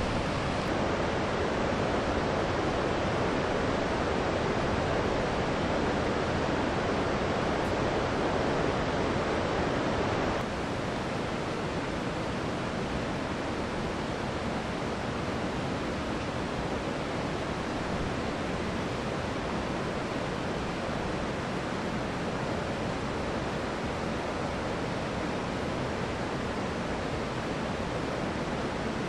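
Steady rush of a mountain river's flowing water, a little quieter after a sudden change about ten seconds in.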